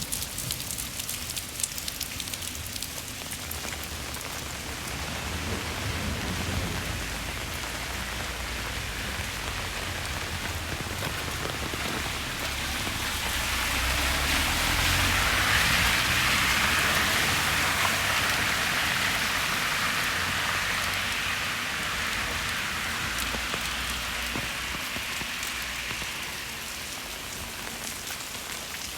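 Steady hiss of rain falling on a wet city street. It grows louder a little before halfway and eases off again towards the end.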